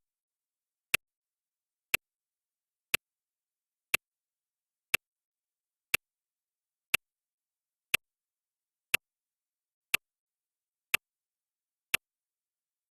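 Clock-tick sound effect of a countdown timer, one sharp tick each second with silence in between.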